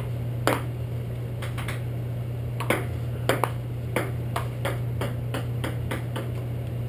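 Table-tennis ball clicking off paddles and the table in an irregular practice rally, a few hits a second. A steady low hum runs underneath.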